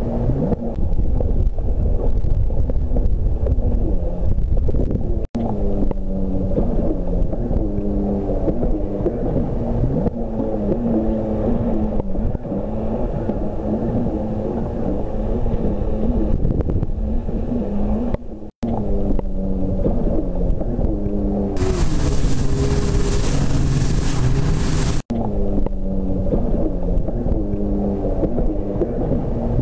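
Jet ski engine running and revving up and down as the craft runs over choppy water. The sound breaks off abruptly three times, and a loud hiss joins for a few seconds about three quarters of the way through.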